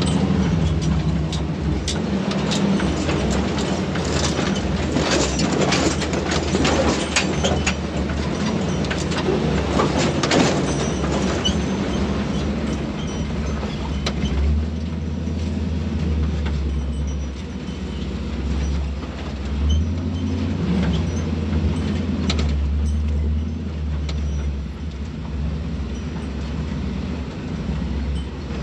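Off-road tow truck driving slowly over a rough dirt trail, heard from inside the cab: a steady low engine drone with knocking and rattling from the body and gear, thickest in the first ten seconds or so and thinning out after.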